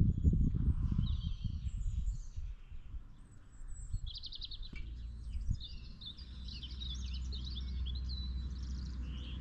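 Small songbirds chirping and trilling in quick, busy phrases from about four seconds in, over a steady low rumble; the first few seconds hold only an uneven low rumbling noise.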